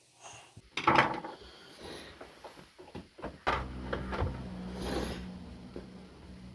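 Hard objects being handled: a run of knocks and scraping, loudest about a second in. About halfway through a low steady hum begins and continues.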